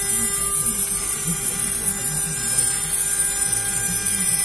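800-watt CNC router spindle running steadily as it mills aluminium at a slow 200 mm/min feed, with a steady high-pitched whine and hiss from the spindle and the water-and-air mist sprayed onto the end mill.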